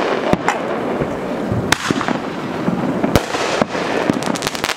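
Consumer aerial fireworks going off: four sharp bangs of bursting shells over a continuous dense crackle of crackling stars.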